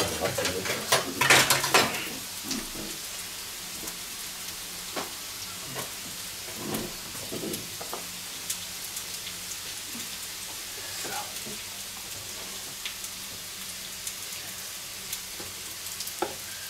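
Potatoes frying in a pan with a steady sizzle. A few loud clatters of kitchen utensils come in the first two seconds, and scattered light knocks follow.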